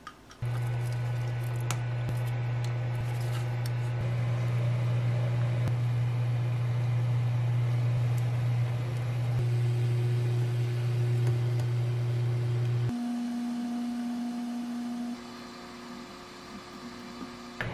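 Pot of stock boiling on an induction cooktop under a steady low hum. About thirteen seconds in the hum cuts out, leaving a quieter passage with a faint steady tone.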